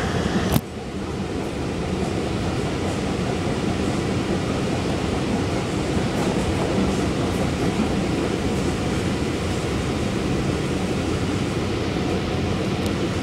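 Long Island Rail Road C3 bi-level passenger coach running at speed, heard from inside the car as a steady noise of wheels and running gear on the rails. A sharp click comes about half a second in, after which the noise dips and builds back up.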